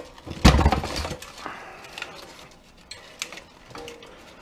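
Sheet-metal chassis of a rear-projection TV's three-tube projection assembly flipped over on a workbench: one heavy clunk about half a second in, with a short rattle, then a few lighter knocks and clicks as it is handled.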